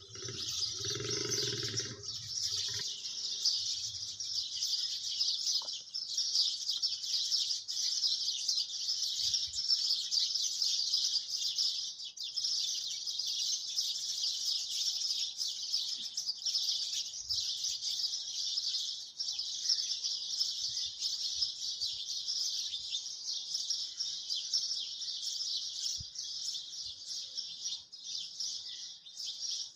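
A steady, dense high-pitched chirping chorus in the background that runs on without a break.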